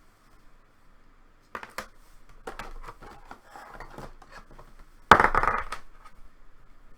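Trading cards and stiff plastic card holders being handled: scattered clicks and rustling, with one loud crackle about five seconds in.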